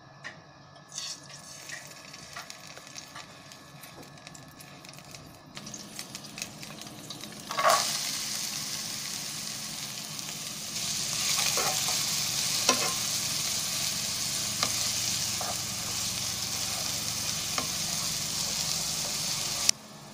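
Chopped onions hit hot oil in a nonstick pot about a third of the way in and start a loud, steady sizzle, with occasional sharp clicks of a spoon stirring them. The sizzle cuts off suddenly near the end. Before the onions go in there are only faint clicks.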